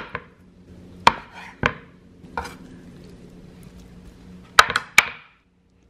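A knife cutting through pork shoulder and striking a wooden cutting board: a handful of sharp, irregular knocks, three of them close together near the end.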